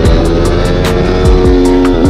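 Background music with a beat, laid over a pit bike's small single-cylinder engine that rises in pitch as it accelerates.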